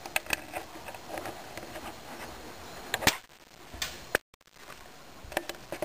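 A few sharp clicks and knocks over a faint steady background. The loudest come about three seconds in and just after four seconds, and the second is followed by a brief dead dropout.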